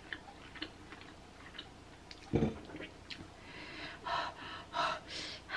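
Faint mouth clicks from eating, then a single dull thump about two and a half seconds in. Near the end come a few sharp, breathy open-mouthed exhales.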